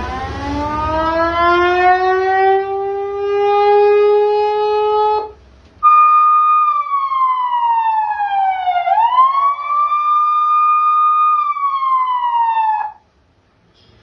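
A 100-watt eight-tone electronic siren sounds through horn loudspeakers as it is switched between tones. First comes a tone that winds up in pitch and levels off, then cuts off about five seconds in. After a short break a higher tone holds, slides slowly down for about three seconds, sweeps quickly back up, holds again, and cuts off about a second before the end.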